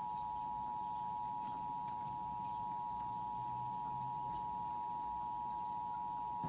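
Emergency Alert System two-tone attention signal (853 Hz and 960 Hz sounded together): a steady, unwavering dual tone announcing an emergency alert, here a required monthly test.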